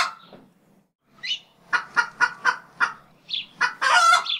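Domestic fowl clucking: a run of short clucks, about five a second, then a longer, louder call near the end.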